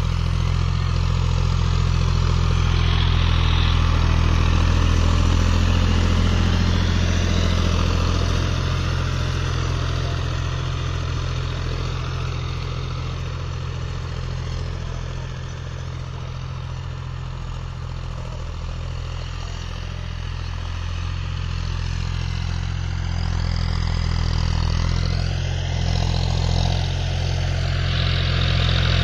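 Farm tractor's diesel engine running steadily under load while tilling soil. It fades somewhat through the middle and grows louder again toward the end as the tractor comes nearer.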